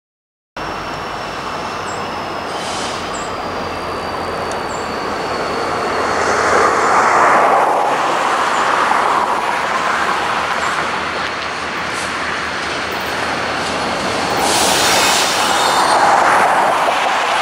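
Canadian National freight train led by SD75I, SD70M-2 and C44-9W diesel locomotives approaching on the rails, its engines and wheels rising out of the distance. The sound swells about seven seconds in and again near the end. A faint thin high squeal, falling slightly in pitch, runs through the first half.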